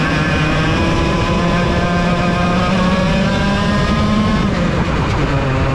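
Vortex VLR 100cc two-stroke kart engine heard onboard at race speed. Its pitch climbs steadily for about four seconds, then falls away and settles lower near the end as the kart slows for a corner.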